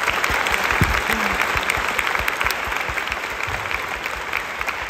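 Audience applauding, a dense, steady clapping that fades gradually toward the end.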